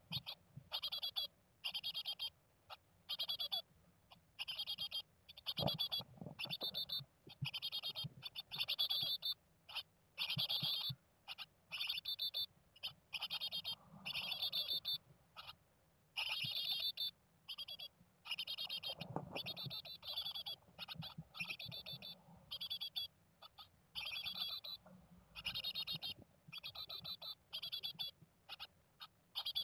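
Japanese tit nestlings calling inside the nest box: high, rapid, chittering calls in short bursts about once a second, with a few soft bumps as the chicks shift in the nest.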